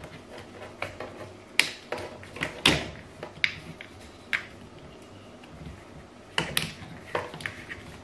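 Corrugated plastic washing-machine drain hoses being handled and pushed together: irregular sharp plastic clicks and knocks, a few louder ones, with faint rubbing in between.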